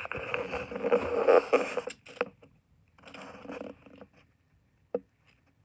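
Handling noise on a phone's microphone: rough rubbing and fumbling as the phone is handled, loudest in the first two seconds and again briefly about three seconds in, then a single sharp tap near the end.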